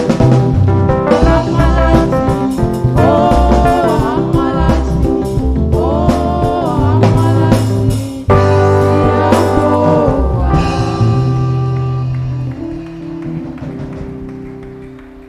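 Gospel song with a singer over a band of keyboard, guitar and drum kit, fading out near the end.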